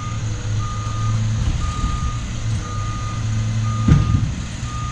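Vehicle reversing alarm beeping steadily about once a second over a low engine hum, with one sharp knock about four seconds in.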